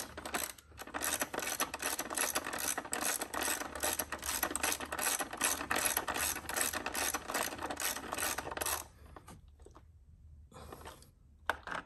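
Ratchet wrench with a 10 mm socket clicking rapidly as it runs down an ignition coil hold-down screw. The clicking stops about nine seconds in, with a few more clicks near the end.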